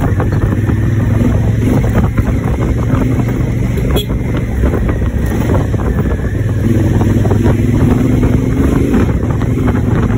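Honda Africa Twin's parallel-twin engine running steadily while the motorcycle is ridden, with wind noise buffeting the microphone.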